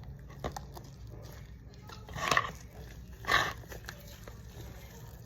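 Two short animal calls about a second apart.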